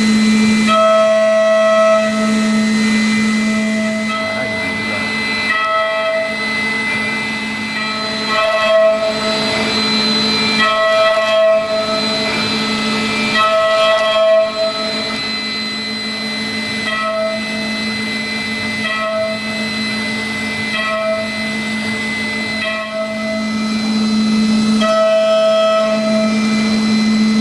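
Five-axis CNC machining center milling an aluminium block: a steady high spindle whine with cutting tones that come and go every second or two as the tool moves in and out of the cut.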